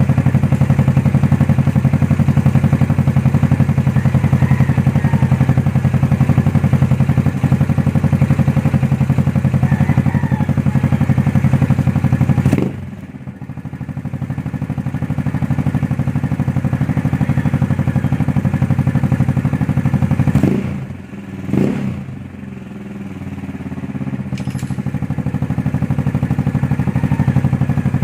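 Yamaha Mio Sporty scooter engine running through a Hero pipe V4 aftermarket exhaust with its silencer removed. It holds steady at raised revs, drops back about halfway through, gives two quick throttle blips, then climbs again toward the end.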